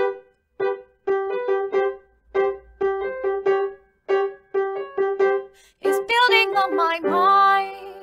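Short music jingle: a run of short keyboard notes, mostly on one pitch. Near the end it turns into a bending, wobbling melodic phrase that is held and rings on.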